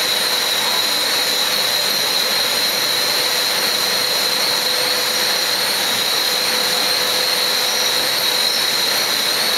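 Billet continuous casting machine running: a steady, loud industrial hiss with a constant high-pitched whine that does not change.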